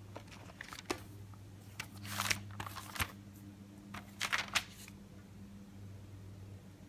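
Paper pages of a notebook being turned by hand, rustling twice, at about two seconds in and again at about four seconds, with a few small taps and clicks between, over a steady low hum.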